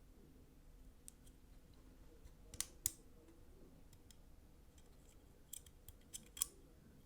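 Faint, sharp clicks of small metal pocketknife parts being handled and seated during reassembly: two close together about two and a half seconds in, then a quick run of four near the end.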